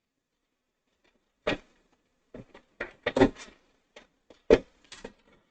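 Sharp clicks and knocks of a 3.5-inch hard drive being handled in a desktop PC case's drive bay. They start about a second and a half in, in an uneven series of about a dozen, and are loudest a little past the middle and again toward the end.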